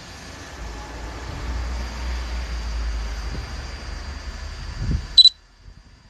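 Steady rushing noise with a low rumble, then a short, sharp, high electronic beep about five seconds in, after which the sound drops to a low hush.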